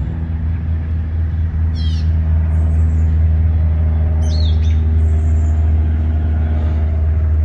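Steady low mechanical hum, with birds chirping briefly about two seconds in and again around four to five seconds in.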